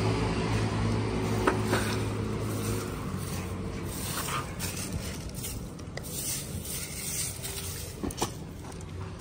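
A steady low hum that fades out after about three seconds, then intermittent rustling and scraping with a few light knocks as things are rummaged through and handled.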